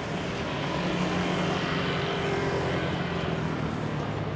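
A motor vehicle's engine hum that grows louder about a second in and then eases off, over a steady hiss of rain.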